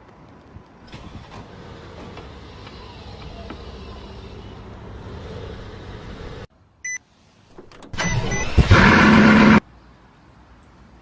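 A luxury car's engine starting: a quieter steady running sound, then after a cut two short electronic beeps, then a loud start-up blip lasting about a second and a half that cuts off suddenly.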